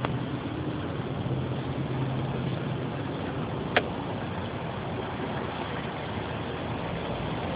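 A car engine running at a steady idle, with one short sharp click about four seconds in.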